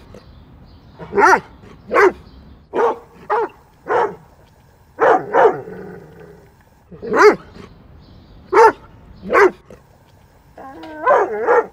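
A dog barking about ten times in short single barks spaced irregularly, then whining briefly near the end.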